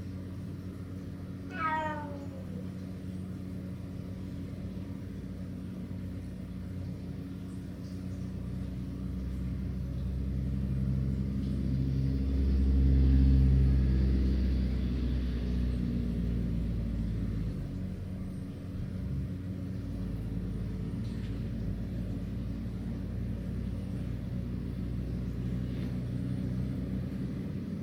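A cat meows once, briefly, with a falling pitch about two seconds in, over a steady low hum. In the middle a low rumble swells, peaks and fades, louder than the meow.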